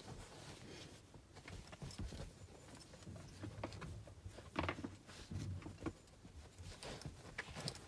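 A working cocker spaniel puppy scrabbling and shuffling about on an upholstered seat: faint rustles, soft paw pats and scattered light clicks, with one louder knock about halfway through.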